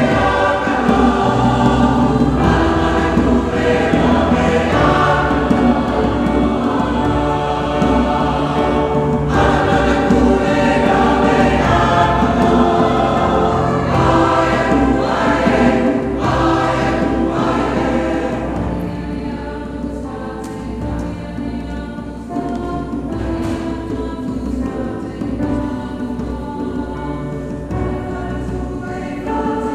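A mixed choir singing a slow sustained song, getting softer about two thirds of the way through.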